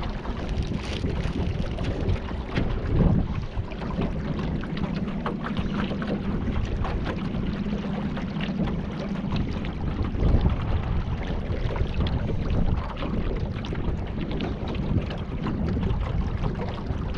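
Wind buffeting the microphone and water rushing along the hull of a small boat underway, with a low steady hum through the first half or so.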